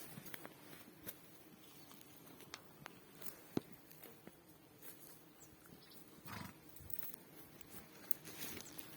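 A horse at close range: scattered small clicks and knocks, and a short breathy sound about six seconds in.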